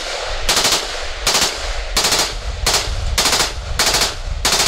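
Full-auto 5.56 rifle with a muzzle brake firing a string of short bursts, about eight in under five seconds, each a quick rattle of a few rounds.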